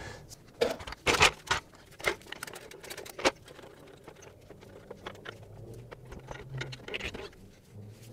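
Trolley jack being rolled and positioned under a vehicle: several sharp knocks and clicks in the first few seconds, then quieter scraping and rattling.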